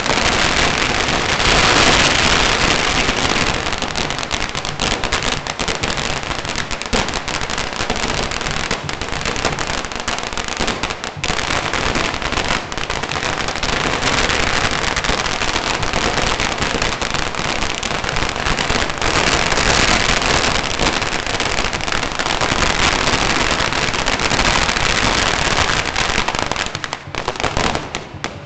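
A large pile of firecrackers going off in one long, dense barrage of rapid cracks and bangs, thinning out and dying away near the end.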